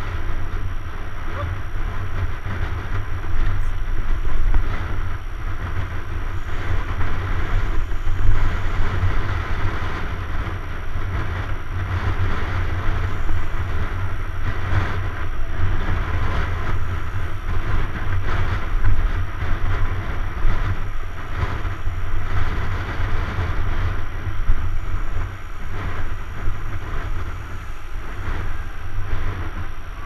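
Steady wind rumble on the microphone of a camera riding on a moving mountain bike, with a continuous hiss of bicycle tyres rolling on asphalt.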